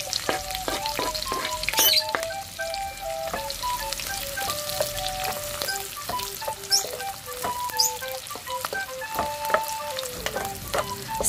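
Chopped onion and garlic sizzling in hot oil while a spatula stirs them, with short scrapes and taps against the pan. A simple melody of held notes plays over it as background music.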